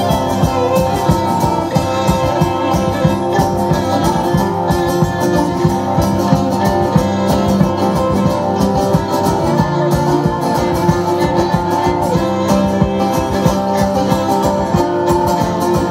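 Live folk band playing an instrumental break between verses: strummed guitar keeping a steady beat under a held melody line.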